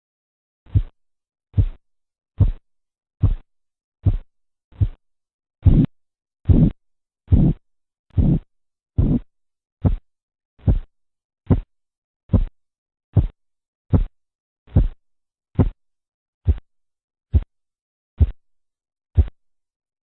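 Korotkoff sounds from the artery under a deflating blood-pressure cuff: 23 regular pulse thumps, a little over one a second. They begin about a second in, marking the systolic pressure, and are loudest and fullest midway. Then they turn softer and shorter and stop near the end, marking the diastolic pressure.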